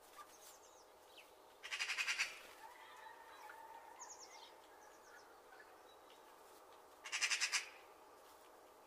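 Wild birds calling: two short, rapid chattering trills about five seconds apart, with a few faint high chirps between them over quiet background.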